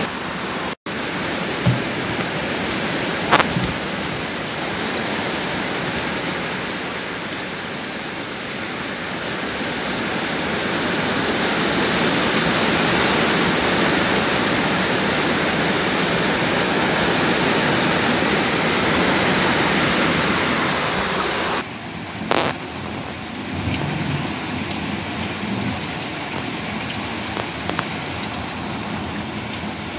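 Heavy rain pouring steadily, an even dense hiss. It cuts out for an instant about a second in. About three-quarters of the way through it turns a little quieter, with a sharp click just after.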